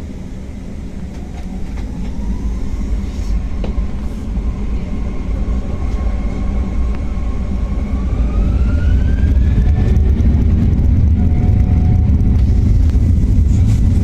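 Airliner's jet engines spooling up for takeoff, heard from inside the cabin: a deep rumble that grows steadily louder, with a whine that rises in pitch twice.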